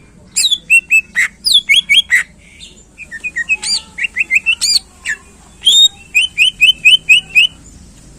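Cucak ijo (green leafbird) singing loudly: rapid runs of short, sharp, sliding whistled notes and chirps, with a quick even run of about seven notes near the end.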